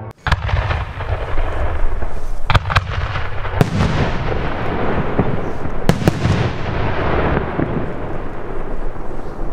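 5-inch Blackboxx ball shells (Kugelbomben) firing and bursting: about six sharp bangs, two of them in quick pairs, with a dense rumble and echo filling the gaps between them.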